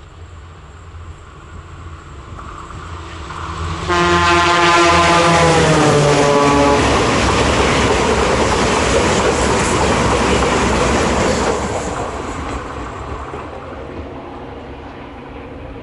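An electric locomotive hauling a Talgo train passes at speed. Its horn sounds for about three seconds as it draws level, the pitch dropping as it goes by, over loud rolling wheel-on-rail noise that builds, holds while the coaches pass and then fades away.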